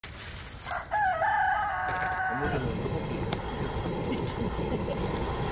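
A rooster crowing once, a single drawn-out call held for about two seconds that falls away at the end. After it comes a steady low bubbling and crackling from a large pan of ramen boiling hard.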